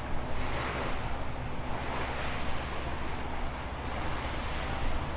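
Wind and sea noise aboard a ship, a steady rush that swells and fades over a steady low rumble.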